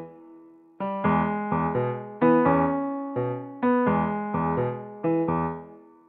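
Background music: a piano melody of struck chords that fade between strikes, with a short gap near the start and a fade-out near the end.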